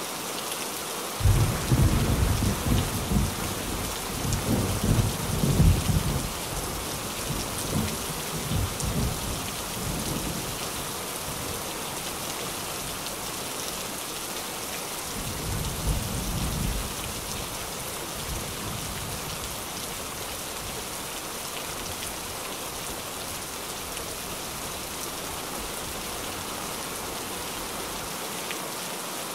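Steady rain drumming on a tin roof, with rolling thunder: a long rumble begins about a second in and dies away over several seconds, and a shorter one rolls through about halfway.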